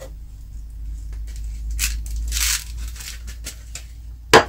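Paper seed packet being handled, with rustling and crinkling and one louder rustle about two seconds in, over a low rumble of handling. A sharp click near the end.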